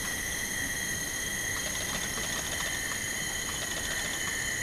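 Rainforest insect chorus: several steady, high-pitched shrill tones held at different pitches at once, with a few faint ticks.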